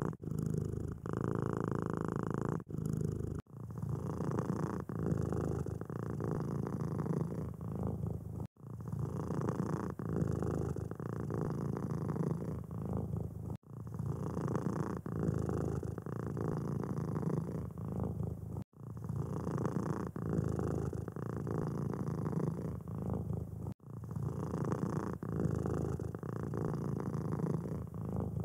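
Domestic cat purring steadily, a continuous fine-pulsed rumble, broken by a short dropout about every five seconds.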